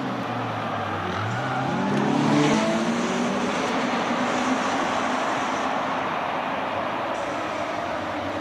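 Race cars accelerating hard past on a circuit, the engine note climbing in pitch for a couple of seconds and loudest about two and a half seconds in, then trailing off into a steady wash of engine noise.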